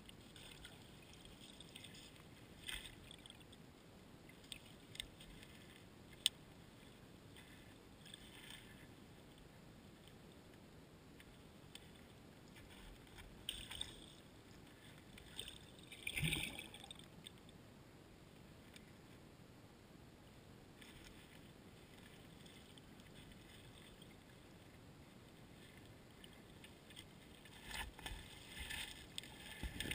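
Faint river water heard underwater through a GoPro camera's waterproof housing resting on the riverbed gravel, with scattered small clicks, a louder crackle about halfway through, and a cluster of knocks near the end.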